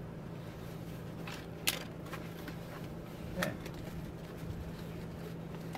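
Cardboard box being opened and handled, with two sharp snaps about a second and a half apart as the flaps are pulled, over a steady low hum.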